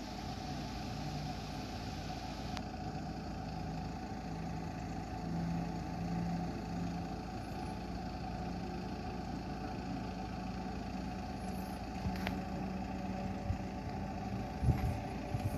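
A vehicle engine running steadily at low revs, a continuous hum, with a few short knocks near the end.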